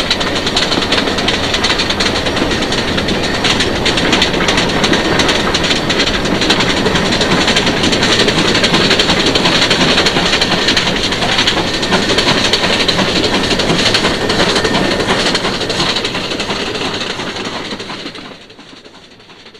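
Steam locomotive hauling a carriage past as it gathers speed, running loud and steady with wheel clatter, then the sound drops away sharply near the end.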